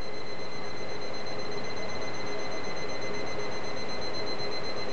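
Alarm clock ringing steadily, with no break and an unchanging pitch.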